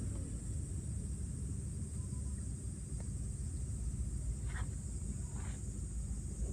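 Wind buffeting the microphone with a steady low rumble, over a constant high drone of insects; two short chirps come in a little after the middle.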